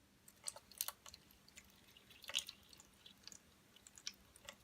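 Faint scattered clicks and taps of small plastic toys being handled, a handful over a few seconds.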